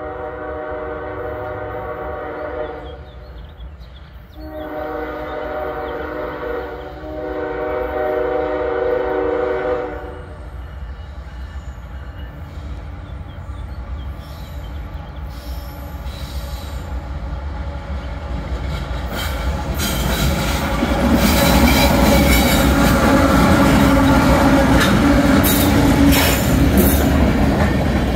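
Locomotive horn of an approaching CSX freight train led by a GE ES44AH sounds three blasts, the last two nearly run together. Then the train's rumble builds, and loaded coal hopper cars pass close by with wheels clicking and knocking over the rail joints.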